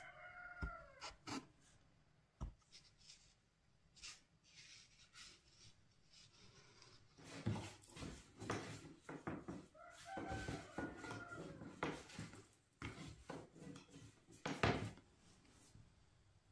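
A rooster crowing twice: one crow trailing off right at the start and another, held steady for over a second, about ten seconds in. Scattered clicks, knocks and rubbing of things being handled sound in between.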